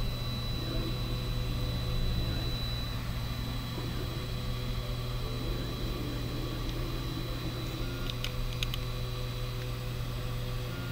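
Steady low machine hum, with a few light clicks about eight seconds in.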